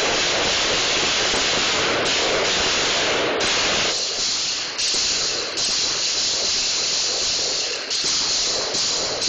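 Loud, steady hiss with no separate shots to be picked out, shifting slightly in tone about four seconds in.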